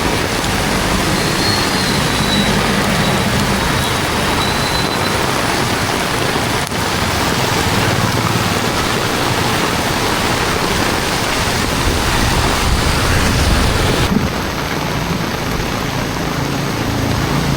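Heavy rain pouring down, a steady dense hiss, with a low rumble of traffic swelling a little past two-thirds of the way through.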